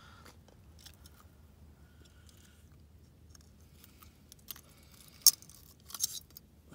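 Small metallic clicks and clinks of long-nosed pliers against a wire jaw spreader as a hook is worked out of a pickerel's mouth, with a sharp click about five seconds in and a few more just after.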